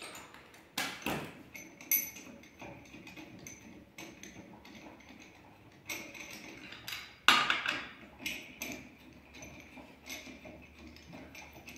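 Lug nuts being taken off a Renault Trafic's front wheel, already loosened, with irregular metallic clicks and clinks and a sharper knock about seven seconds in.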